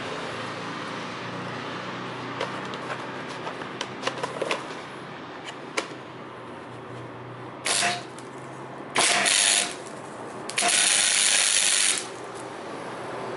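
MIG welder arcing in three short bursts of hiss, the last and longest about a second and a half, tack-welding a flexible exhaust pipe section onto the exhaust pipe. Light ticks and clicks come before the first burst.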